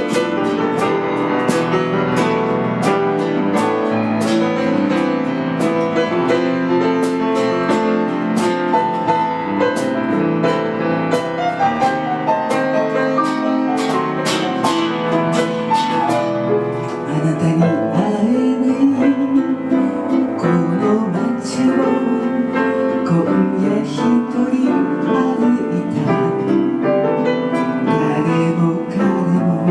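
Slow ballad accompaniment of piano and guitar. A singing voice comes in a little over halfway through.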